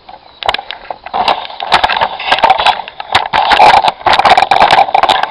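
Loud, dense crackling and rustling close to the microphone, starting about a second in: handling noise from the handheld camera rubbing and shifting.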